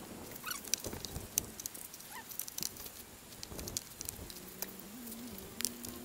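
Snow knocked and shaken off laden tree branches, falling in clumps with a light patter and scattered soft taps. A faint wavering tone comes in about four seconds in.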